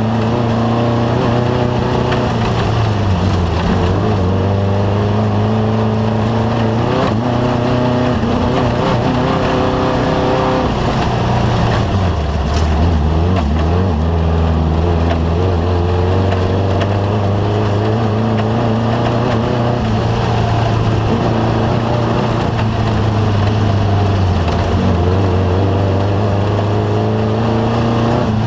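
Off-road race vehicle's engine running hard and loud, its pitch dipping and climbing again several times as the throttle and gears change, over a steady rumble of driving noise.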